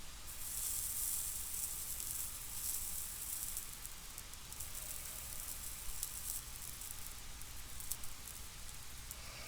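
Flux and solder sizzling under a soldering iron as wires are soldered to a charger plug: a hiss that starts just after the beginning, strongest for the first three seconds, then quieter with small crackles.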